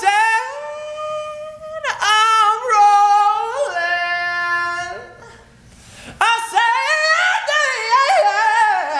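A man's high tenor voice singing a cappella, holding long notes that bend in pitch. There is a short break about five seconds in before he sings again.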